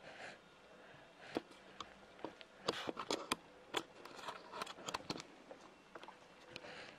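Faint, scattered sharp clicks and taps, most of them bunched together in the middle seconds, over quiet room tone with a faint steady hum.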